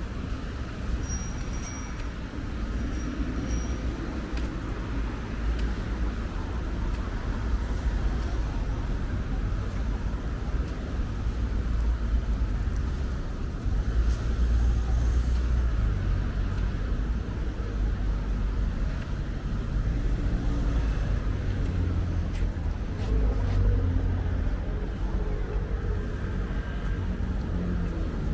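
Street traffic noise: a steady low rumble of passing cars and other motor vehicles.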